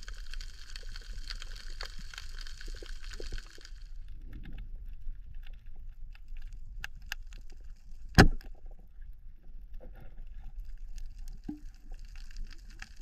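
Underwater sound picked up through an action camera's waterproof housing. A hissing rush runs for the first few seconds and then stops. After that come scattered small clicks and one loud, sharp knock about eight seconds in.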